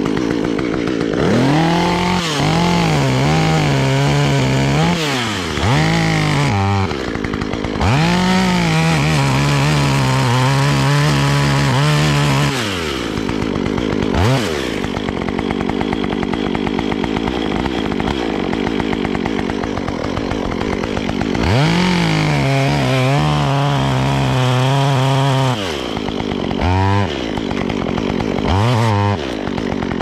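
Stihl MS 193 two-stroke chainsaw revved in short bursts, then held at full throttle through a cut in a small log, idling for several seconds, and held high through a second cut, with a few quick blips of the throttle near the end. The chain is badly filed, which the owner calls a sharpening fail.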